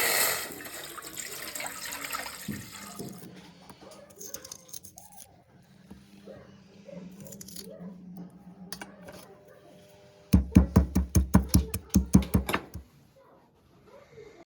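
Kitchen sounds: running water cuts off at the start. Quiet clinks and knocks of utensils being handled follow. About ten seconds in comes a quick run of about a dozen heavy thumps, about five a second, lasting a couple of seconds.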